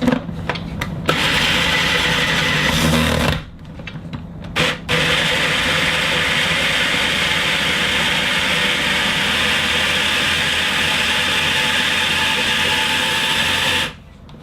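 Food processor motor running, blending cream cheese, ricotta and sugar until smooth. It runs for about two seconds, stops briefly, then runs steadily for about nine seconds before cutting off.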